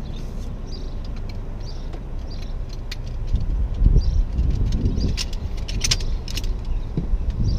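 Shock-corded aluminium poles of a folding camp chair frame clicking and rattling as the sections are unfolded and snapped together. A scatter of sharp metallic clicks comes mostly in the second half.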